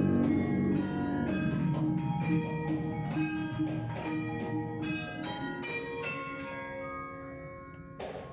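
Background music of struck, ringing bell-like notes played several to a second, growing gradually quieter.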